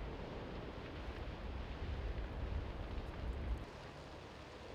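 Steady rush of a wildfire burning close by, with wind rumbling and buffeting on the microphone; the low rumble eases about three and a half seconds in, leaving the fire's rush and faint crackles.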